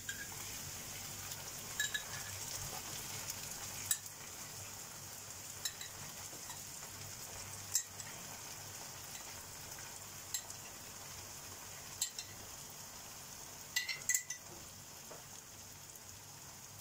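Chopped onions and pepper paste frying in a pan with a steady sizzling hiss. Short, sharp clinks of a spoon come every second or two, with a quick cluster near the end, as tomato sauce is scooped from a glass jar into the pan.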